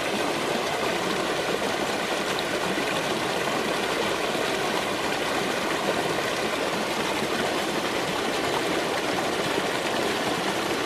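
Small creek rushing and splashing over rocks in a low cascade, a steady, even flow.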